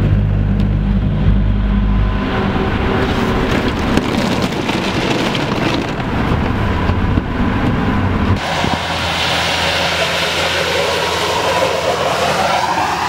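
Steady low drone of a vehicle's engine and tyres on a snow-covered highway. About eight seconds in it gives way to a snowplow truck going by with a broad rushing noise and a tone that rises near the end.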